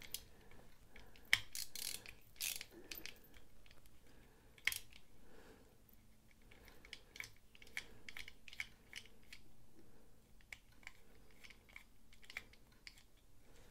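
Precision Torx T8 screwdriver turning out the screws of a folding knife: faint, scattered metal-on-metal clicks and ticks, with a few sharper clicks in the first five seconds.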